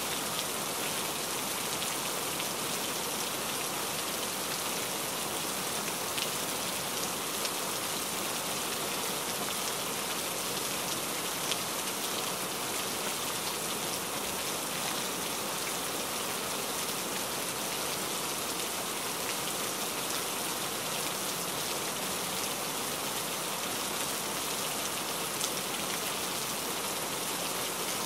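Steady rain, an even hiss of falling water with a few louder single drops now and then.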